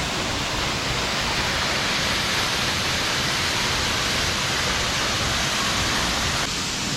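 Waterfall: a loud, steady rush of falling water, with the sound thinning slightly near the end.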